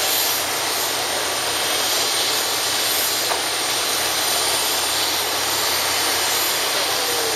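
Airbus A380 taxiing, its four Rolls-Royce Trent 900 turbofans running at taxi power: a steady, even jet hiss.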